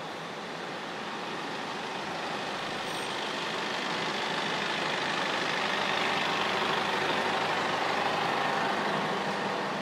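Street traffic: a vehicle passing, its noise swelling over several seconds and easing near the end.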